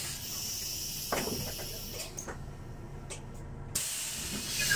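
City bus's pneumatic passenger doors working: a steady hiss of compressed air stops about two seconds in, a few sharp clicks of the door mechanism follow, and the air hiss starts again just before the end, over the low hum of the idling bus.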